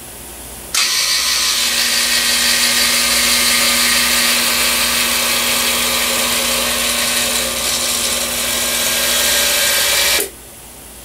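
Indelac ICI Model ES2 200 in-lb electric spring-return actuator: its motor and gear train drive the valve stem toward closed against a torque tester's load. It starts abruptly about a second in and runs steadily with a low steady tone under it, then cuts off abruptly near the end as it reaches the fully closed position.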